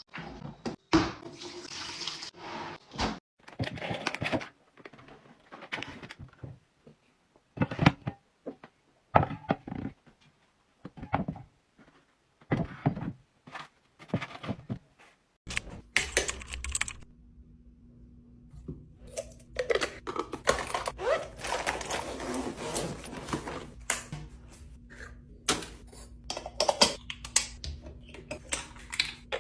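Household items and containers being handled and set down during a kitchen restock: a run of separate knocks, clicks and rustles. About halfway in, a steady low hum starts under them, followed by a longer stretch of continuous rustling or pouring noise.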